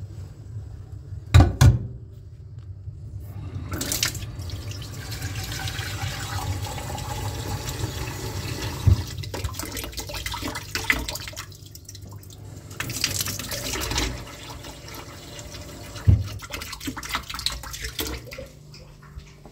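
Tap water running into a small saucepan in a stainless steel sink, rushing steadily for about eight seconds, then a second, shorter run. Two sharp knocks about a second and a half in, and a few light clatters near the end.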